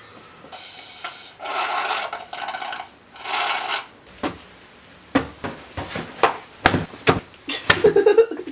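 A pillow fight: a quick run of soft thumps and rustles as cushions are swung and strike a person and the couch, starting about four seconds in and coming faster toward the end. Before that, a few short rustling noises.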